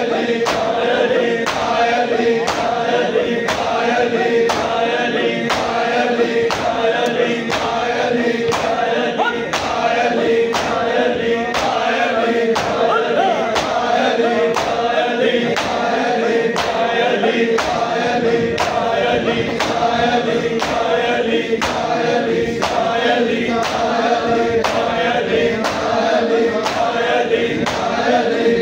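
A group of men chanting a noha lament in chorus, kept in time by sharp, even beats of matam (rhythmic chest-beating), about three strikes every two seconds.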